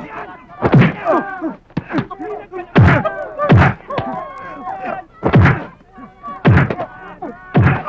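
Punches and body blows landing in a fist fight, six heavy hits spaced a second or two apart, with shouting voices between them.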